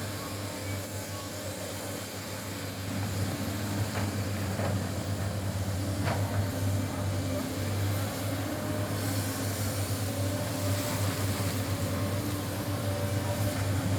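Sany excavator's diesel engine running steadily under load, with a deep hum that gets louder about three seconds in and a couple of faint knocks.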